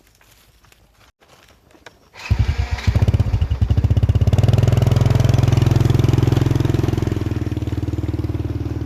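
A small engine starts about two seconds in and then runs steadily with a fast, even pulsing beat.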